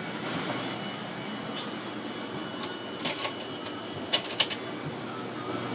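Sharp clicks and taps of hard plastic as a white PVC pipe fitting is handled: one group about three seconds in and a quick cluster of clicks about a second later, over a steady hum.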